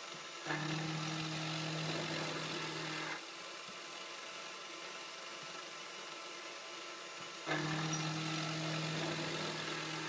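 Sieg X3 CNC mini mill climb-milling 6Al-4V titanium with a quarter-inch AlTiN-coated carbide end mill at a quarter-inch depth of cut and 20 inches per minute, a setting at which the machine sounds a little more at ease. The spindle runs steadily throughout. Twice, about half a second in and again near the end, the cut grows louder with a steady hum for about three seconds.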